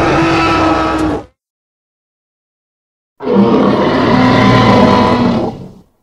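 Tyrannosaurus rex roar sound effects: a deep, growling roar ends about a second in, then after a pause of about two seconds a second, longer roar starts and fades out near the end.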